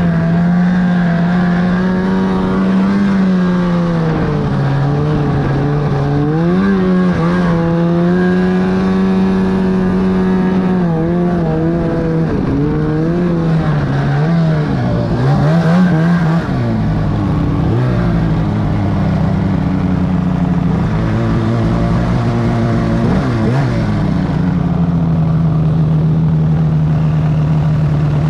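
2008 Arctic Cat F1000 Sno Pro snowmobile's two-stroke twin engine running under way, its pitch rising and falling again and again as the throttle is worked.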